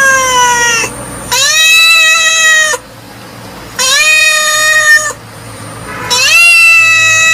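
A cat meowing loudly: four long, drawn-out meows in a row, the first falling slightly in pitch and the last held the longest.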